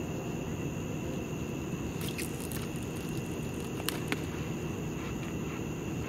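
A few sharp clicks from a fishing reel and rod being handled for a cast, about two and four seconds in, over a steady low rumble.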